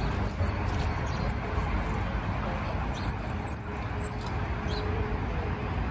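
Steady low traffic rumble, with a high, rapid chirping trill over it that stops suddenly about four seconds in.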